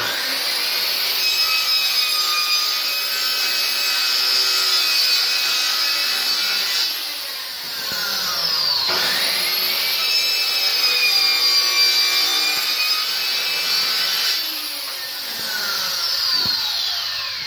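Cordless circular saw cutting through plywood: a loud, steady motor whine with cutting noise that starts abruptly. About eight seconds in the blade spins down and at once speeds up again, and it spins down once more near the end.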